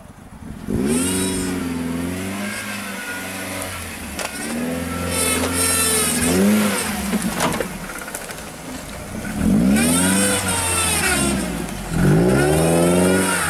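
Lifted Suzuki Jimny revving hard in about four bursts as it drives through mud and up a ditch bank, the engine note climbing and dropping back each time.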